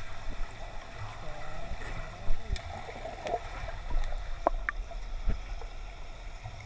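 Underwater sound from a camera submerged in a swimming pool: muffled water movement and bubbling over a low rumble, with scattered sharp clicks and knocks.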